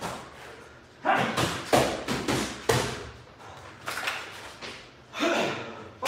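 Boxing gloves landing punches during sparring: a quick flurry of about six thudding blows, then a couple more near the end.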